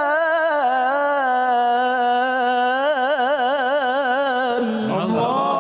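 A male reciter's voice in melodic Quranic recitation (tilawah), holding one long melismatic note that wavers in a vibrato. Near the end it drops lower into sliding turns of pitch.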